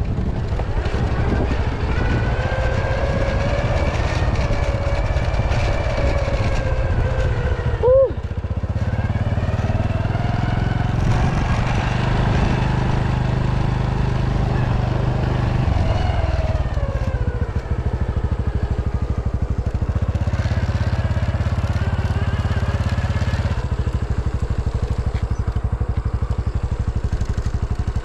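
Honda Super Cub's single-cylinder four-stroke engine running on the move, its pitch rising and falling as it speeds up and slows, over a steady low rumble. A brief sharp sound stands out about eight seconds in.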